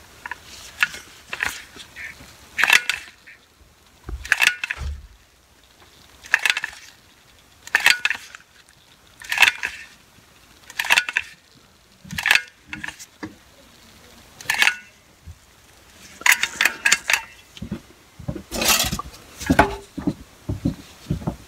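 Caulking gun loaded with a tube of roofing tar, its trigger squeezed again and again to lay a bead of tar along a cast iron pipe. Short crackling clicks come every second or two. Near the end there are several quick ones together and some rubbing from handling.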